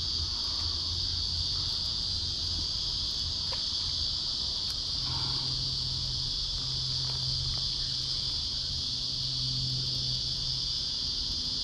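Steady, shrill insect chorus: one unbroken high-pitched drone that never pauses.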